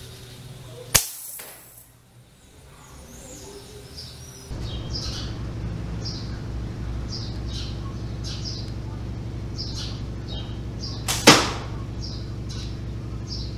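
Slingshot rifle shooting fishing arrows: two sharp snaps, one about a second in and a louder one near the end. Small birds chirp in the background.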